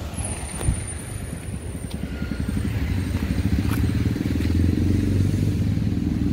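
A motor vehicle's engine running close by, a low rapid pulsing that grows louder from about halfway through.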